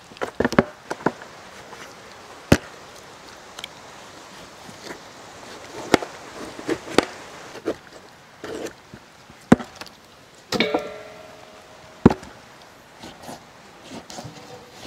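Knife scoring raw mutton legs on a large aluminium tray: scattered sharp knocks and taps at irregular intervals as the blade cuts through the meat and meets the metal.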